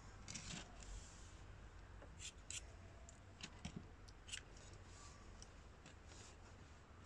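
Scissors snipping through a Merino guinea pig's long, matted curls: faint, short snips at irregular intervals.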